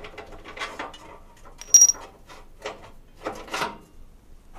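Hand tools on a track bar bolt: scattered metal clicks and knocks and a short scrape, with one sharp metallic clink, the loudest sound, a little under two seconds in.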